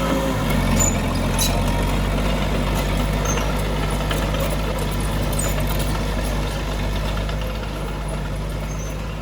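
Heavy diesel engine of earthmoving machinery running steadily, with a few faint metallic clinks; it eases slightly quieter over the last few seconds.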